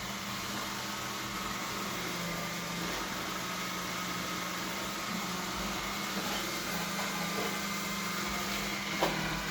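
Samsung Galaxy S9+ phone making a steady grinding noise with a low hum, and one sharp click about nine seconds in.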